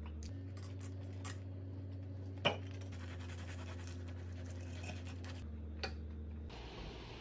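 Knife and fork scraping and clicking against a ceramic plate while cutting a bread-wrapped hot dog, with one sharper clink about two and a half seconds in, over a steady low hum. Near the end it gives way to a steady hiss.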